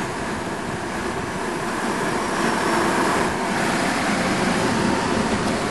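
Steady noise of a car moving slowly, heard from inside its cabin, with no sharp events.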